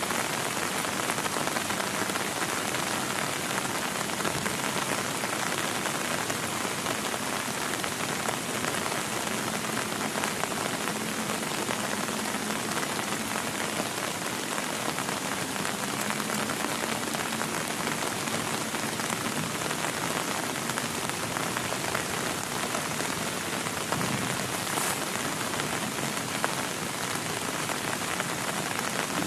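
Heavy rain falling steadily on a tent, a dense even patter with no let-up, and one sharp tap near the end.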